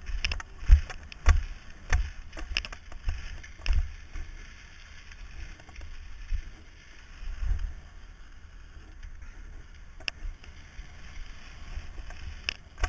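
Rider's-eye sound of a BMX bike on a paved track: wind buffeting the helmet microphone with a steady low rumble, and sharp knocks and rattles as the bike goes over the rollers, most frequent in the first few seconds.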